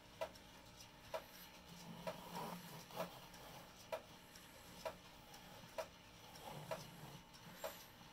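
Electromechanical clock movement ticking steadily, about one sharp tick a second. Soft handling noise comes twice as hands turn the movement over.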